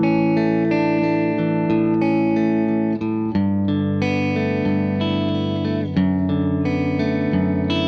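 Fender Telecaster played clean through a compressor pedal into a Vox AC30 amp: ringing chords that sustain evenly at a steady level, with a new chord struck every second or two and a change of chord about three seconds in and again about six seconds in.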